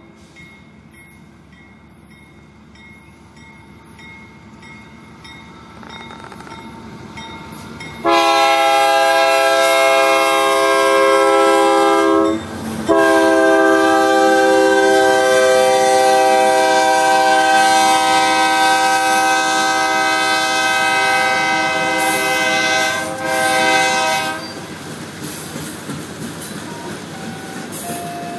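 BNSF diesel freight train approaching, its rumble growing louder. About eight seconds in, the locomotive's multi-chime air horn sounds a long blast, breaks briefly, then sounds a longer blast of about eleven seconds. Near the end the steel wheels of the covered hoppers and tank cars clatter past on the rails.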